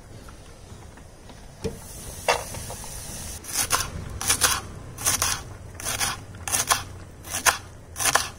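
Chef's knife chopping radish leaves on a wooden cutting board. After a couple of soft knocks come about seven crisp, evenly paced strokes, a little under a second apart.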